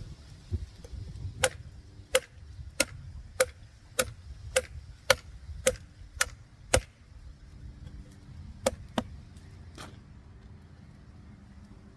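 Small hatchet-sized camping axe chopping in a test cut: about ten sharp strikes in a steady rhythm, roughly one every half-second, then a pause and three more strikes.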